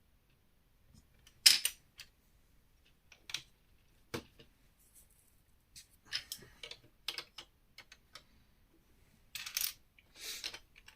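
Plastic LEGO pieces being handled, pulled apart and fitted together: irregular clicks and small clatters, the loudest a sharp click about one and a half seconds in, with two short rustles near the end.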